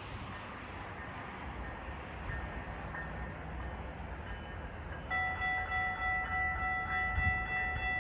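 Rumble of a GO Transit train approaching, then, about five seconds in, its cab car's raised-letter Nathan K5LA five-chime air horn starts blowing a steady chord that holds on.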